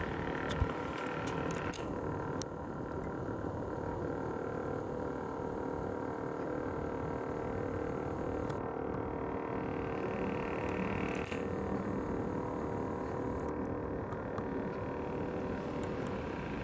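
Canon PowerShot SX510 HS lens zoom motor whirring steadily, picked up by the camera's own built-in microphone. The higher hiss cuts out and returns abruptly a few times.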